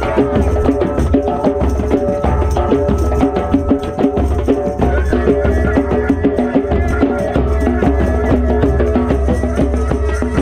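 Several drums played together in a fast, steady rhythm, as in a drum circle. A sustained droning tone runs under the drumming.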